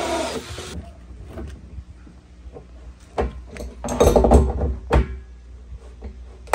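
A cordless drill with a hole saw cutting through the wall of a plastic drum, stopping abruptly under a second in. Then scattered knocks and clunks as a pipe wrench tightens a PVC tank flange inside the drum, loudest about four and five seconds in.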